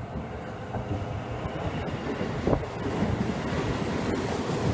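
Seibu Railway 20000 series electric train running into the station alongside the platform, its wheel and track rumble growing louder as it comes near. One sharp knock stands out about halfway through.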